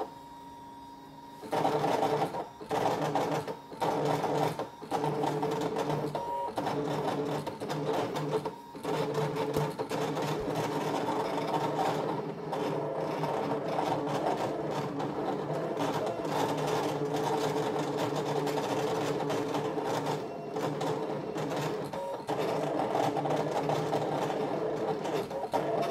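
Brother ScanNCut cutting machine cutting vinyl: its motors run as the blade carriage and mat move back and forth, setting in about a second and a half in and stopping briefly a few times between runs.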